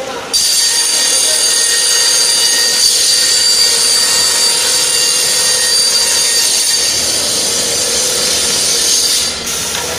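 Cutting saw on a rock wool sandwich panel production line cutting through a panel: a loud, steady, high-pitched whine that starts abruptly about half a second in and stops suddenly near the end.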